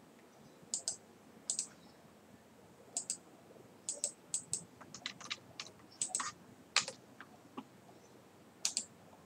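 Scattered sharp clicks of a computer mouse and keyboard, about fifteen at irregular intervals, some in quick pairs.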